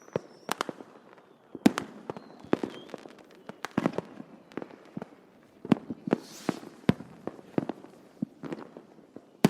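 Distant fireworks going off: many sharp pops and bangs at irregular intervals, some in quick clusters, with a brief faint whistle about two seconds in and a short hiss around six seconds.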